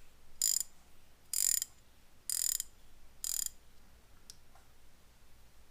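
Craftsman 3/4-inch ratcheting combination wrench being ratcheted back and forth: four short runs of fine metallic clicking about a second apart, followed by a single faint tick.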